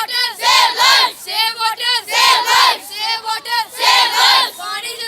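A group of high, young voices singing a song together in unison, phrase after phrase with short breaks.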